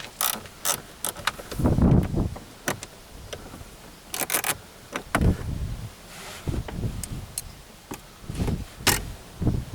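Hand tools and parts being handled at a car's dashboard: irregular sharp clicks and clatters with a few dull thumps, the loudest thump about two seconds in.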